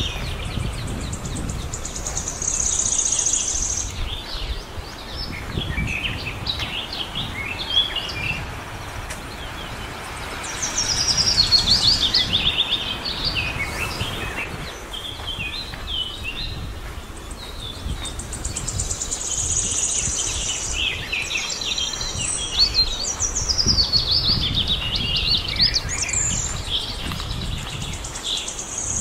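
Birds singing and chirping, with repeated high trills, over a steady low rumble.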